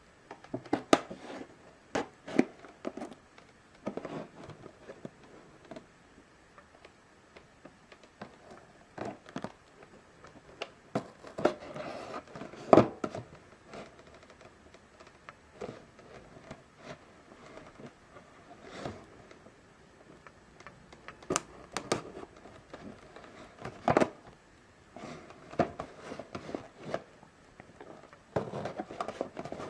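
Irregular clicks, taps and short scrapes of small scissor tips picking along the edge of a hard plastic figure display base as it is handled, with a few sharper knocks.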